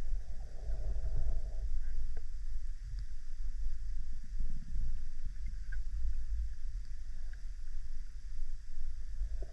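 Underwater water noise on a swimming diver's camera: a steady low rumble of moving water, with a few faint clicks.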